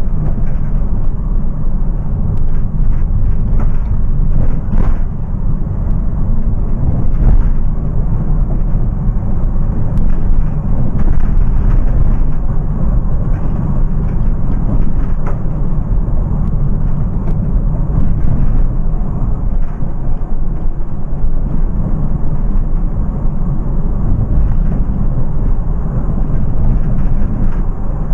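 Electric-converted VW T5 van on the move, heard from inside the cab: a steady low road and tyre rumble, with occasional light knocks and rattles.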